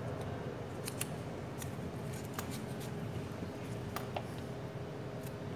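Scattered small clicks and light rustling as enamelled copper coils are pressed by hand into the insulated slots of an electric motor stator during rewinding, over a steady low background hum.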